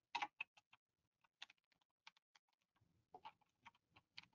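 Faint, irregular keystrokes on a computer keyboard, typed in short runs with pauses between them.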